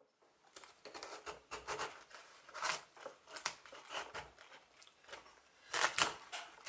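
Kitchen knife cutting into a head of red cabbage on a wooden board: a run of short, crisp crunching cuts as the blade goes through the leaves, the loudest about six seconds in.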